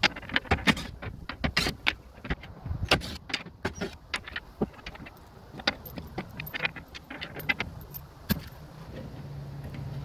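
Small metal screws and parts clicking and clinking as they are taken out of a plastic tailgate trim panel and handled. There are knocks on the panel. The clicks come thick and fast in the first half and more sparsely after that.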